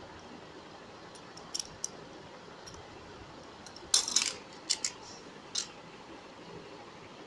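Scattered short clicks and scratches of hands and a tool working air-dry clay close to the microphone, the loudest a brief rattly cluster about four seconds in, over a faint steady hiss.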